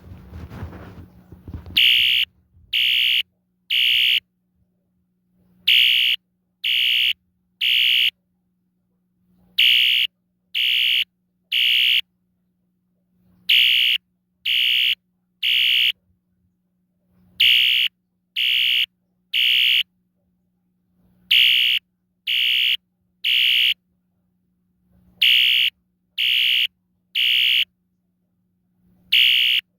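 Wheelock ES-DL1-WS-24DC electronic fire alarm horn sounding the temporal code 3 evacuation pattern: three short, shrill beeps, a pause, then three again, repeating about every four seconds. A brief low rumble comes before the first beeps, and a faint steady hum runs underneath.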